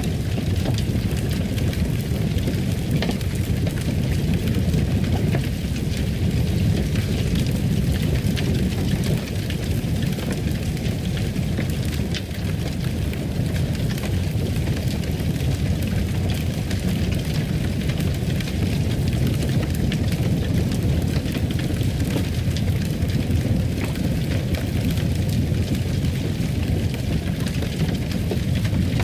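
Fireplace fire burning: a steady low rumble of flames with scattered small crackles and pops.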